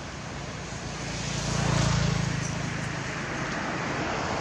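A motor vehicle passing by: a low engine hum with road noise that swells to its loudest about two seconds in, then fades.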